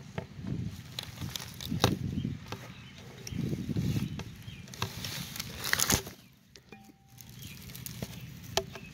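A broken toilet seat and its loose hinge pieces being handled on dry pine needles: scattered clicks and knocks with rustling, and a louder rustle about six seconds in.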